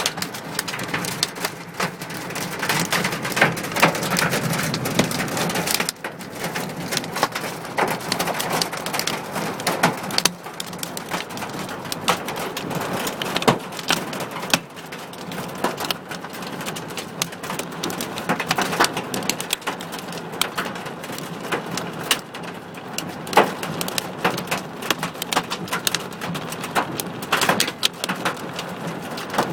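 Hailstones and rain pelting the body and windscreen of a car, heard from inside the car: a dense, continuous patter of sharp impacts.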